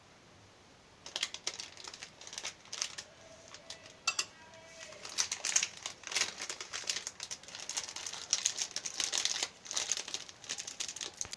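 Thin plastic bag crinkling in irregular bursts as it is squeezed, folded and twisted into a piping cone filled with a cream mixture, getting busier about halfway through.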